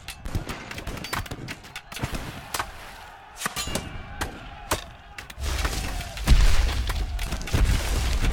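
Animated sound effects of cannon fire: a scatter of sharp shots and thuds, several a second. About five seconds in a deep heavy rumble of stone sets in and swells loud.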